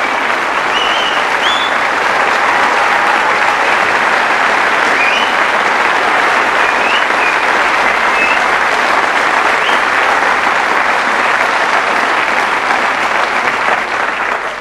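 Studio audience applause, steady and dense, with a few short high whistles, fading out at the end.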